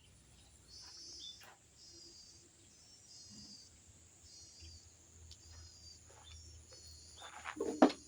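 A small bird singing the same short chirping phrase over and over, about once a second, over a steady high whine and a low hum. Just before the end a loud sudden knock, like wood being handled.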